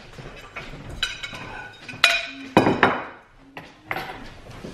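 Stoneware plates being set down on a wooden table and metal forks laid on them: a run of clinks and clattering knocks, the loudest a few in quick succession a little past halfway.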